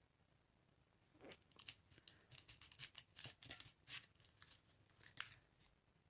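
Candy wrapper crinkling and tearing: a faint run of crackles that starts about a second in and stops near the end.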